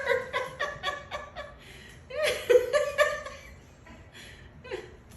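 Laughing: a quick run of short pitched "ha" notes, then a second bout about two seconds in that trails off.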